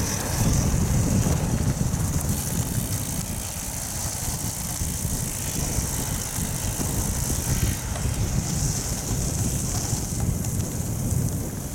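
Strong wind buffeting the microphone on a moving bicycle, with the hiss of tyres rolling over a gravel road.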